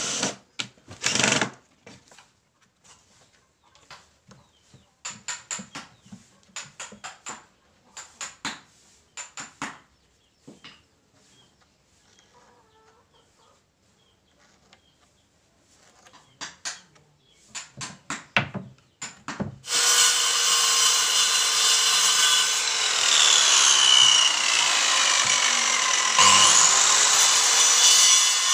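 A cordless drill runs in short bursts at the start, followed by a long stretch of light knocks and clicks from handling and marking the timber. About two-thirds of the way in, a handheld electric circular saw starts and cuts through wood with a loud steady whine, its pitch sagging under the cut and rising again near the end.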